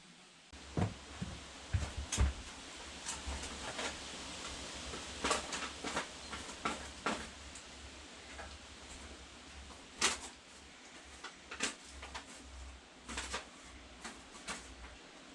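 Irregular clicks and knocks of tools and engine parts being handled during engine assembly work, over a low steady hum that starts about half a second in.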